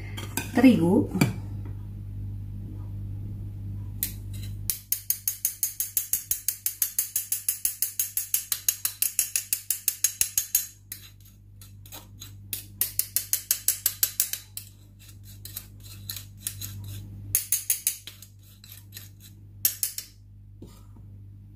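A flour sifter clicking rapidly and evenly as flour is sifted into the whisked egg batter, about five clicks a second: a long run starting about five seconds in, then several shorter bursts.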